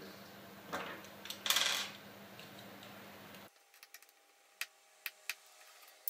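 Small metal tools being handled: a short clatter about a second and a half in, then a few faint, sharp clicks of a Torx screwdriver against the screws in the iMac's aluminium bezel.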